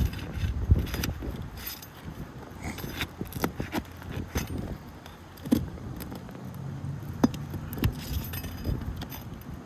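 Irregular metallic clicks, clinks and scrapes of a hand tool working an asphalt roof shingle and its nails loose, over a low wind rumble on the microphone.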